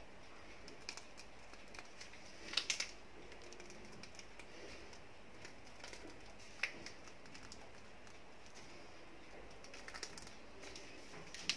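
Faint handling sounds as mashed potato is squeezed from a piping bag with a metal nozzle into a glass baking dish: a few light clicks and taps over a low hiss. The clearest are a quick pair about two and a half seconds in, one a little past the middle and one at the end.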